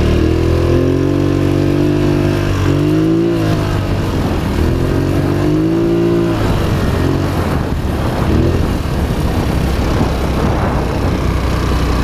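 Polaris Sportsman XP 1000 S ATV's twin-cylinder engine running under way, its note rising and falling twice in the first half as the throttle is worked, then going on less evenly.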